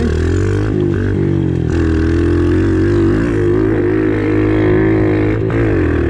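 Kawasaki KLX 110 pit bike's single-cylinder four-stroke engine running at steady revs while ridden along a dirt track, the pitch dipping briefly a few times as the throttle eases and comes back on.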